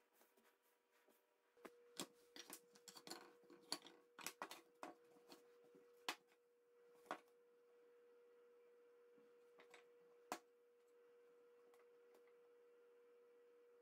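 Light clicks and knocks of wooden box pieces being picked up and set down on a wooden table. They come in a cluster through the first half, with one more sharp knock later. A faint steady tone hums underneath.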